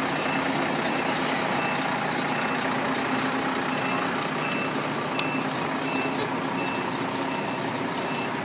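A truck's reversing alarm beeping at an even pace over the steady sound of its running engine.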